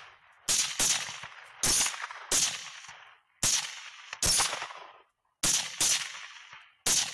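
A volley of rifle shots from several hunters firing at hogs at once: about nine sharp cracks at uneven spacing, some in quick pairs, each trailing off over about half a second.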